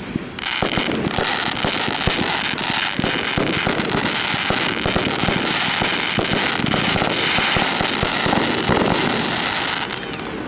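Fireworks exploding in a dense barrage, many cracks and bangs overlapping into a continuous crackle, easing off near the end.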